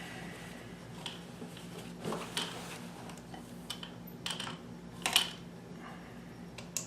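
Scattered light clicks and clinks of hands working at a Bernina 610 sewing machine, setting the fabric and the needle-position and zigzag controls before stitching, over a steady low hum.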